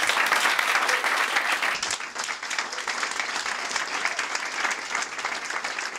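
Audience applauding: many hands clapping together at once, loudest at the start and easing off slightly as it goes on.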